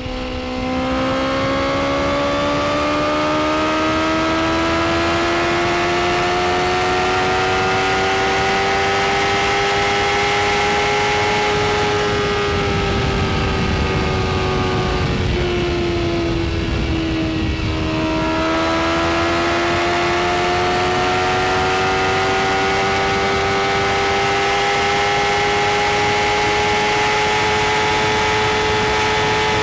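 BMW S1000 RR inline-four engine running at high revs under load, its pitch climbing slowly. About halfway through it eases off for a few seconds, then pulls higher again. A heavy rush of wind runs underneath it.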